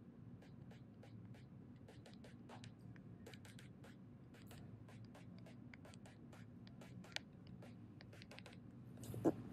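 Stylus writing on a tablet screen: many short, quick taps and scratches as equations are written by hand, with a louder cluster of taps near the end.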